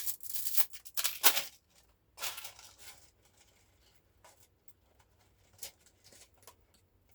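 Crinkling and crackling of a reused plastic deli container being handled with dry pasta, in two short spells, followed by a few light clicks.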